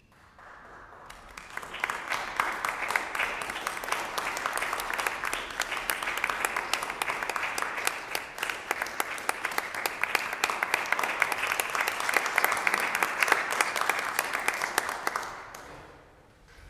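Audience applauding in a concert hall: the clapping starts softly, builds within about two seconds, holds steady, and dies away near the end.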